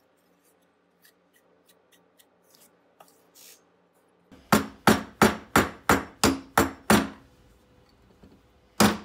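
Small hammer tapping on the metal hinge of an aluminium camera back door: faint handling clicks, then a run of about eight sharp, ringing taps at roughly three a second, and one more tap near the end.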